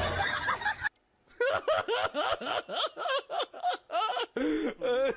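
A person laughing: a run of short, high-pitched bursts several times a second, dropping lower in pitch near the end.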